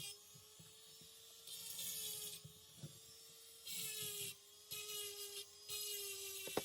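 Faint small metallic clicks and scrapes of pliers working the wrist-pin locking clip into a chainsaw piston, over a steady low hum. High-pitched hiss comes and goes four times.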